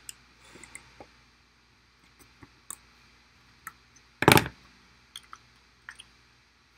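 Small plastic parts of a Fluke SV225 adapter housing being handled, giving scattered light clicks and taps, with one louder knock about four seconds in.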